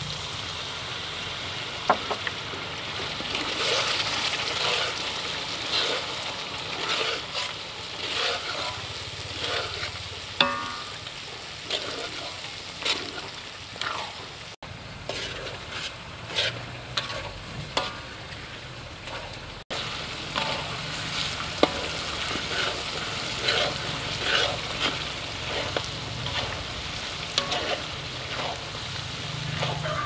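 Chili and garlic paste frying in oil in a metal wok, sizzling steadily, while a metal spatula scrapes and stirs it around the pan. There are a few sharp clinks of the spatula against the wok.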